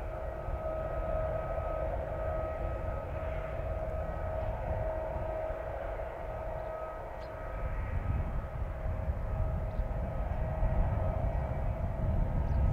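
Steady whine from a parked Boeing 767 and the ground equipment serving it on the apron, sitting over a low rumble. The rumble grows louder in the second half.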